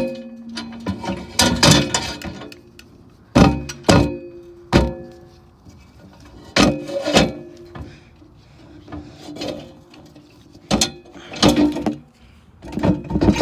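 Metal parts of a broken-down Honda GC190 small engine knocking and clanking as it is handled and taken apart, about a dozen irregular sharp knocks, each ringing briefly.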